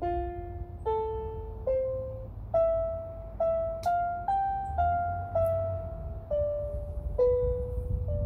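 Background music: a slow piano melody of single notes, each struck and left to fade, about one or two a second.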